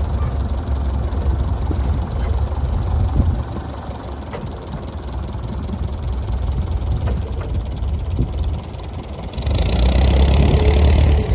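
A vehicle engine idling steadily, with a few light clicks over it. About nine seconds in, a louder rushing noise joins it.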